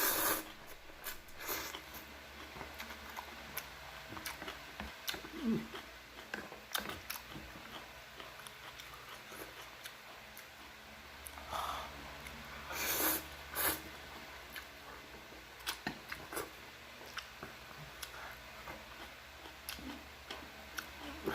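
A person eating noodles and kimchi up close: chewing, with scattered light clicks and a few short, louder noisy bursts about 12 to 14 seconds in.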